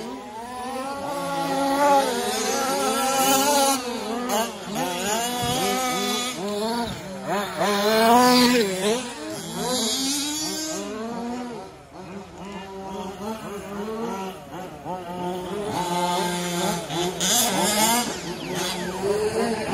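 Several 1/5-scale RC trucks' small two-stroke petrol engines racing at once, revving up and down with overlapping rising and falling pitch. Briefly quieter about twelve seconds in.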